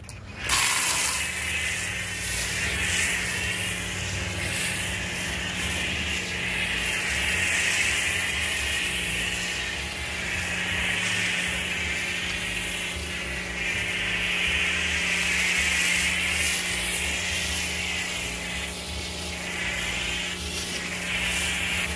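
Pressure washer running with a foam cannon spraying thick soap foam, a steady hiss over a constant motor hum. It starts suddenly about half a second in, and the hiss swells and eases as the spray is swept across the panel.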